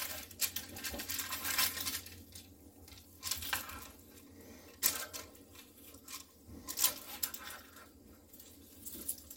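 Metal kitchen tongs clicking and scraping against a metal baking tray and its parchment paper as whole baked fish are flipped over, a scattering of short, sharp clinks.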